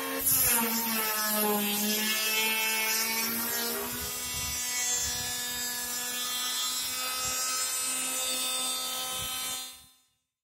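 Electric hand planer running and shaving a pine board: a steady motor whine with the rasp of the cutter head on the wood. The whine drops in pitch in the first couple of seconds, then holds steady, and the sound cuts off near the end.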